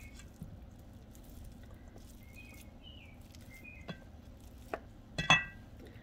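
Quiet kitchen room tone with a few small clicks, then a sharp, ringing clink of kitchenware about five seconds in.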